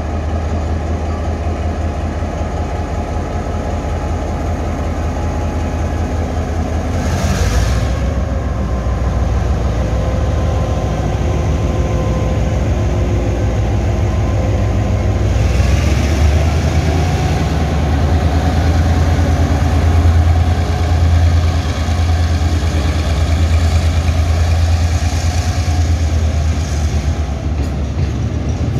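Taiwan Railways R100-class diesel-electric locomotive running with a deep, steady engine drone as it moves slowly past, hauling flat wagons. The drone grows louder about seven seconds in and again near sixteen seconds, and a faint whine rises in pitch at those moments.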